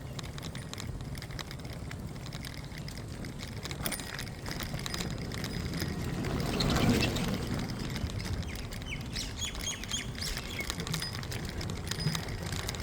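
Birds chirping over a steady low rumble, with a louder rushing swell about seven seconds in.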